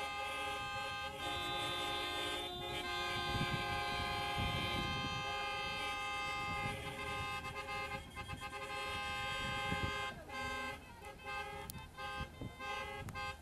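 Several car horns honking together in long, steady, overlapping blasts. After about ten seconds the honking breaks into shorter toots.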